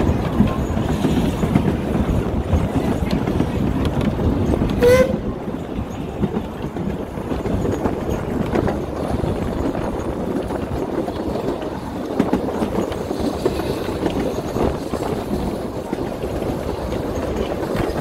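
Puffing Billy narrow-gauge train carriage rumbling and clattering steadily over the rails. About five seconds in, the steam locomotive's whistle gives one short toot.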